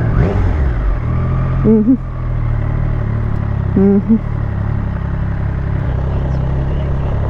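Triumph Street Triple S 660 cc three-cylinder engine heard while riding, its revs falling over the first second or so, then running steadily at low speed.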